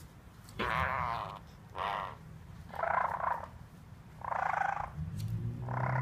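Black-headed caique making a string of short buzzy calls, five in all, each about half a second long and roughly a second apart.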